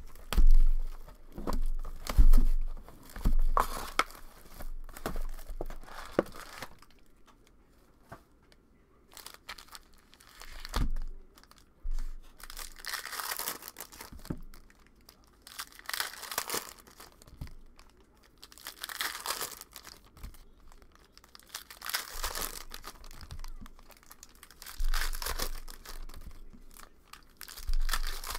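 Plastic trading-card pack wrappers from a Panini Prizm football hobby box being torn open and crinkled by hand, in bursts every few seconds through the second half. A few dull thumps near the start are the loudest sounds.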